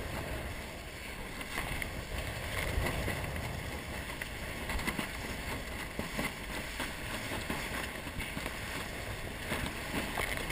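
Water rushing and splashing steadily along the hull of a 470 sailing dinghy as it sails fast, heeled over, with spray thrown off the bow.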